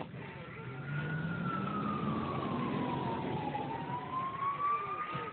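Fire engine siren in a slow wail, its pitch falling for a few seconds and then rising again.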